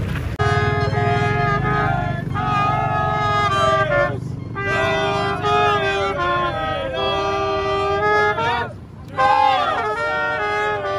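Trumpet playing a tune in long held notes, starting about half a second in, with two short breaks, about 4 and 9 seconds in. Voices of the people around can be heard under it.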